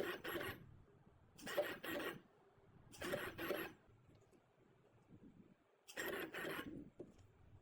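Four short rasping strokes, each under a second long, with a longer pause before the last one.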